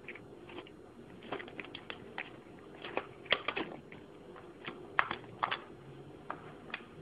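A cat eating cat food from a glass bowl: irregular crunches and clicks of chewing and of the food and teeth against the bowl, coming in little clusters.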